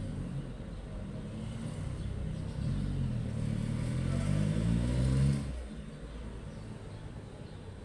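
A motor vehicle's engine, rising in pitch and growing louder to a peak about five seconds in, then dropping away suddenly, over a steady lower engine hum.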